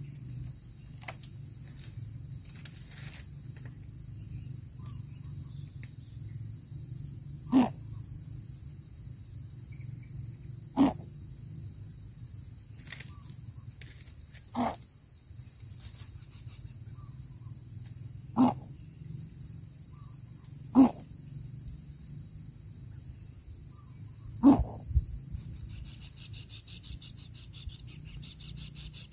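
A coucal chick giving six short, loud calls a few seconds apart. A steady, high-pitched cricket trill runs beneath them.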